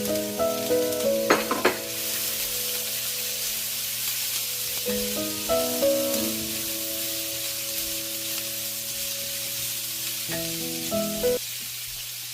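Food sizzling in a hot frying pan, a steady hiss that builds about two seconds in, with a couple of sharp clicks just before it.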